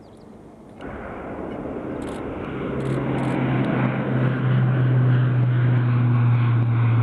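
Airbus A400M Atlas's four TP400 turboprop engines climbing out after takeoff. The sound comes in about a second in and grows steadily louder, and a steady low propeller drone joins it about three seconds in.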